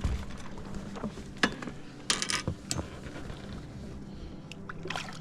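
Fishing gear being handled in a boat: a few scattered clicks and knocks, with a short run of ratchet-like clicking a little after two seconds in, over a faint steady hum.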